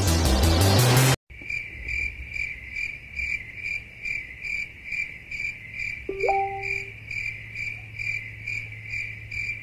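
Background music cuts off about a second in, followed by cricket chirping, a steady high chirp repeating about two to three times a second: the stock 'awkward silence' gag after a question goes unanswered. A short rising blip sounds once about six seconds in.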